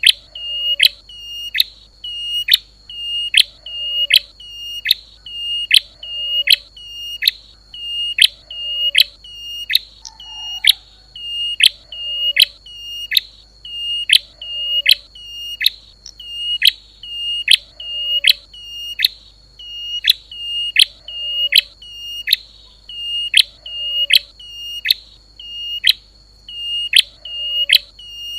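Recorded lure call of the prenjak lumut (klawu), a small prinia: a sharp, high chirp that drops quickly at its end, repeated about one and a half times a second in an unbroken loop, over a faint steady high tone.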